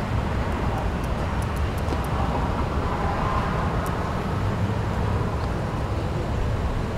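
Steady low rumble of vehicle engines and road traffic, with a few faint, sharp clicks in the first couple of seconds.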